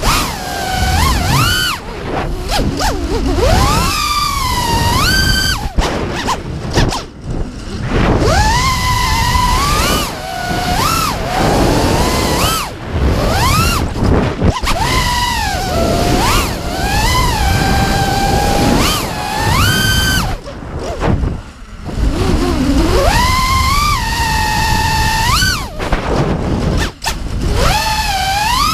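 FPV quadcopter's brushless motors and props whining, the pitch swooping up and down sharply as the throttle is punched and chopped, over wind rush on the onboard microphone. The whine drops away briefly a few times.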